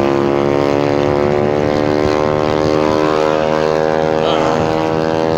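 Honda Forza 300 scooter's single-cylinder four-stroke engine running at a steady cruising speed, a constant drone heard from the rider's seat.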